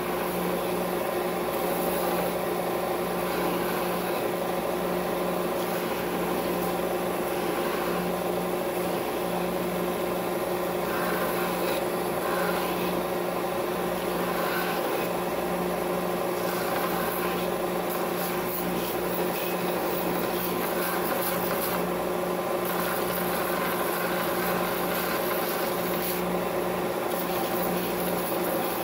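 Benchtop belt and disc sander running with a steady motor hum while a cast epoxy jewel is pressed against its 120-grit belt, a rasping grind that swells and eases as the piece is worked against the belt.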